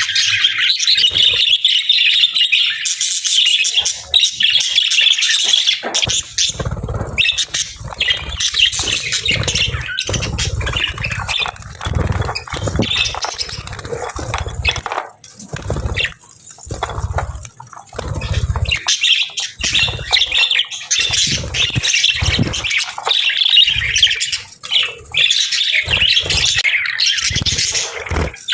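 Budgerigars chirping and chattering busily, with squawks mixed in. From about six seconds in, a run of dull low thumps comes and goes under the chatter.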